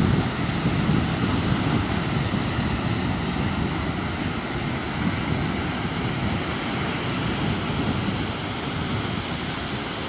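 Ocean surf breaking and rushing on a sand beach, a steady wash of noise, with wind buffeting the microphone.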